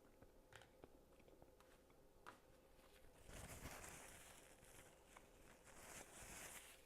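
Faint close-up sounds of eating a sandwich: small mouth clicks of chewing, then, about three seconds in, a louder stretch of crunchy chewing noise that swells twice.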